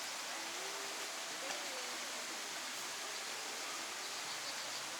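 Steady rushing of a mountain valley stream, with faint voices of other people in the distance.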